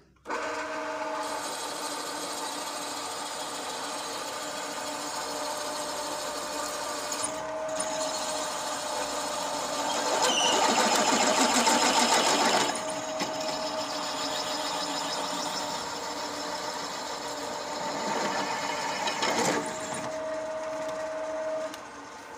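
Pillar drill running and boring a hole into a cast tractor leveling-box housing: a steady motor whine with the cutting noise, louder for a few seconds about halfway through, then the drill stops near the end.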